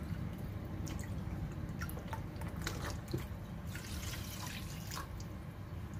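Chicken broth poured from a small bowl into a clay pot of raw rice, trickling and splashing in a thin stream with scattered drips, over a low steady hum.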